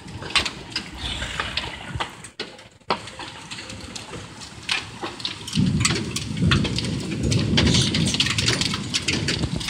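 A hailstorm with heavy rain: a steady rush of rain scattered with many sharp hits of hailstones striking the house and deck. About halfway through, a low rumble swells for several seconds.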